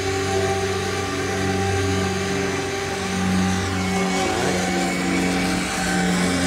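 An engine running steadily with a low, even hum whose pitch drifts slightly.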